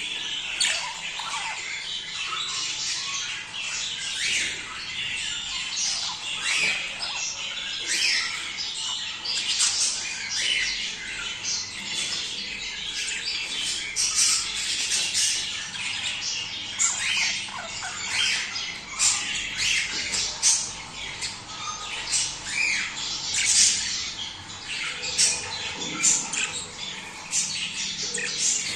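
A flock of budgerigars chattering and squawking without pause, a dense tangle of rapid high chirps and sharp calls.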